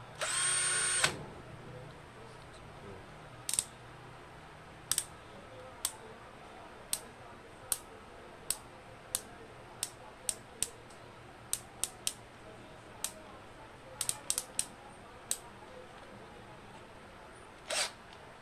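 A 20 V cordless drill's motor runs for about a second at the start and stops. Then its torque clutch collar is turned by hand, clicking through the settings one detent at a time, about eighteen sharp clicks with uneven gaps, and a short rattle near the end.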